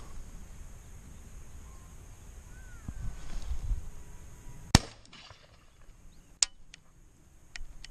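A double-barrelled shotgun fired once, a loud report with a short echo, followed about a second and a half later by a second, quieter and sharper crack.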